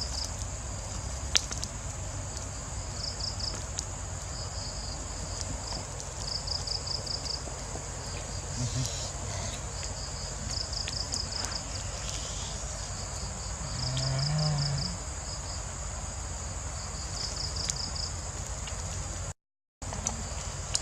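Forest insects chirping: short rapid trills repeating every second or two over a steady high insect drone, with a sharp click early on and a brief low sound about two-thirds through. The sound drops out for a moment near the end.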